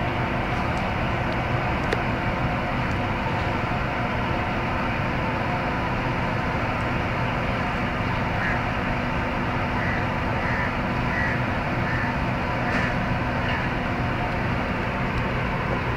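Steady mechanical hum and hiss with a low droning tone, unchanging throughout. About halfway through, a run of about six faint, short, high chirps.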